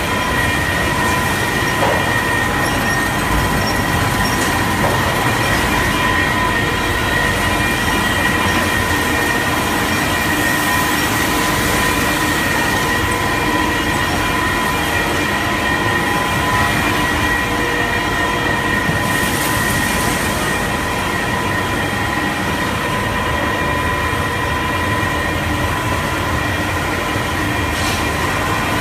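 Puffed snack extrusion production line running: a steady, loud machinery noise with a constant high whine.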